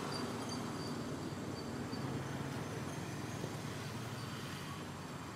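Steady background rumble with faint, short high-pitched chirps over it.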